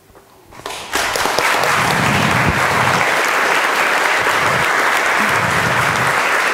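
A large audience applauding, breaking out about a second in and then holding steady.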